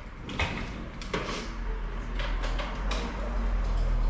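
Handling noise from the plastic body of a cordless lawn mower as it is moved and lifted: a few scattered knocks and rattles over a low steady rumble.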